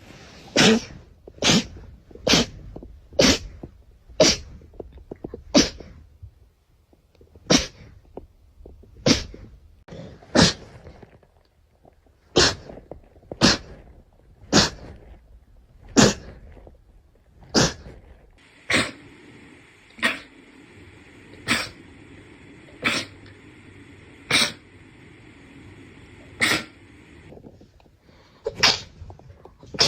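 A long fit of sneezes in quick succession, some twenty in all, about one every second or so. A faint steady whine sits behind them for several seconds in the second half.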